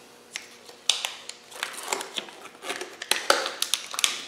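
Steel-backed engine main bearing shells clicking against each other as a stack is handled and separated, with the crinkle of their paper wrapping. A scatter of light, sharp clicks, the strongest about a second in and again around three seconds in.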